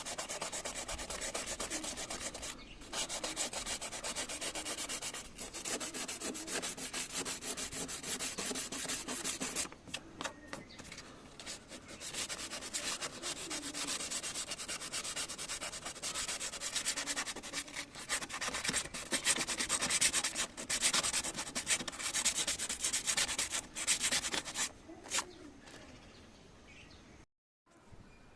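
Sandpaper rubbing steadily over a dented Mercedes-Benz body panel during do-it-yourself bodywork, in long spells with brief pauses, at its loudest in the second half and stopping near the end.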